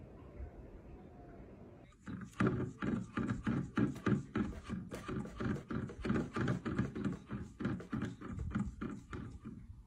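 A cat tapping its paw against a tall glass on a nightstand, over and over at about three quick taps a second, starting about two seconds in after quiet room tone.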